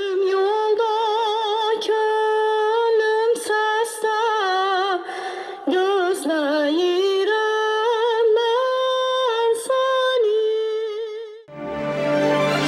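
A woman singing unaccompanied in a classical operatic style, holding long notes with a wide vibrato. Near the end, instrumental theme music comes in.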